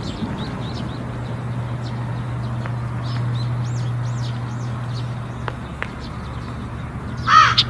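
Small birds chirping over a steady low hum. Near the end, louder, harsh repeated bird calls begin.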